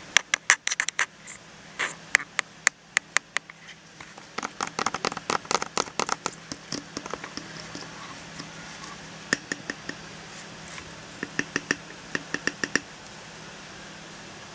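Tapping on the glass front element of a Canon 24-70mm f/2.8 camera lens: sharp clicks in quick, irregular runs with short pauses between them.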